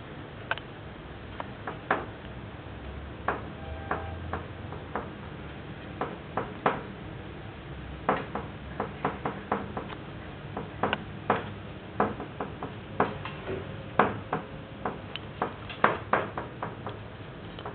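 Irregular sharp ticks and taps of a cat's claws and paws on the wooden top rail of a baby gate as it walks along it, some coming in quick clusters and others a second or more apart.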